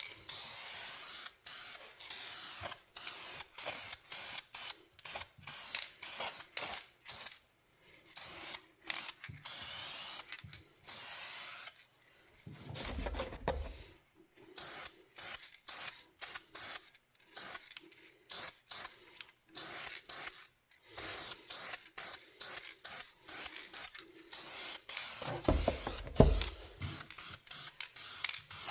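Hand abrasion of the metal parts of a Bedrock 605C hand plane during rust removal: rapid short scraping strokes that start and stop, a few per second. Low knocks come in twice, about halfway through and again near the end.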